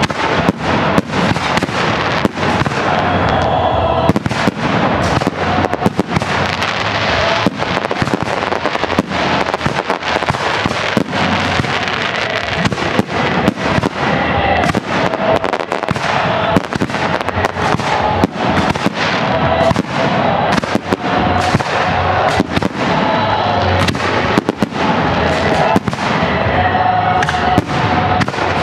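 Aerial fireworks display: a continuous barrage of shell bursts, many sharp bangs close together with no let-up, over a steady crackle.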